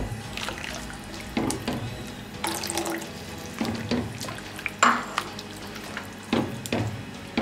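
Thin chicken soup being stirred in a wok with a silicone spatula while cornflour slurry thickens it: irregular swishes and sloshes of liquid, about one every second, with light knocks of the spatula against the pan.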